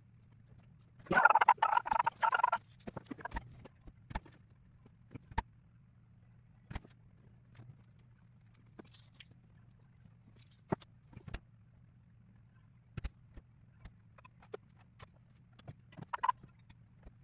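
Small wooden model-kit parts being handled at a table. A dense burst of rattling and rustling comes about a second in, followed by scattered single clicks and taps, over a faint low steady hum.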